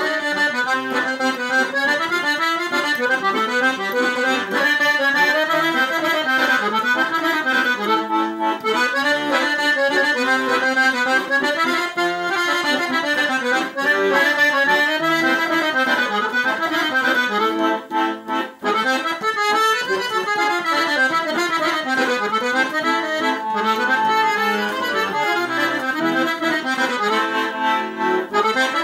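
Piano accordion playing a Romanian învârtita folk dance tune: a quick-moving melody on the right-hand keyboard over steady bass accompaniment, with a brief break about two-thirds of the way through.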